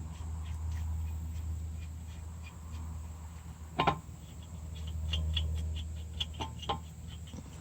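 Lug nut being run onto a wheel stud to hold a brake rotor on a truck's front hub: one sharp metal clank about four seconds in, then a few lighter metal clicks, over a steady low hum.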